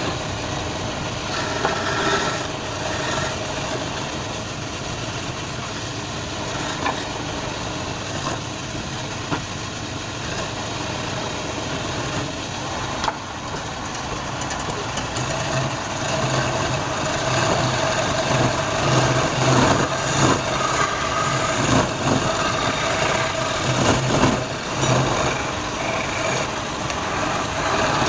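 Wood lathe running steadily, with the rough scraping noise of a turning tool on the spinning wood. It gets louder and more uneven about halfway through as the cut gets heavier.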